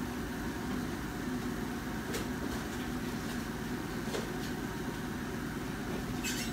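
Steady low hum of a running appliance, with a couple of faint ticks and one sharper click near the end.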